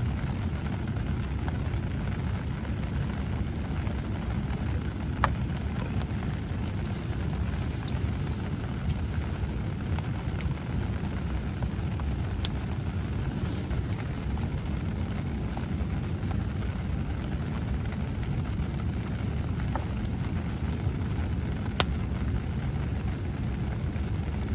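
Campfire burning with a steady low rumble and a few sharp pops from the wood, about 5, 12 and 22 seconds in.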